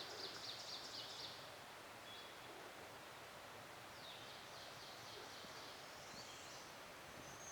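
Small birds singing faintly: quick trills of repeated high-pitched notes, each lasting about a second, near the start and again about four seconds in, over a faint steady background hiss.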